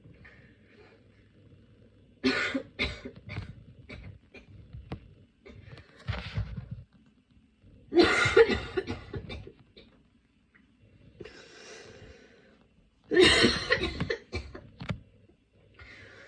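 Person with a chest cold coughing in a fit: bouts of several harsh coughs, the loudest about eight seconds in and again near the end, with fainter breaths between.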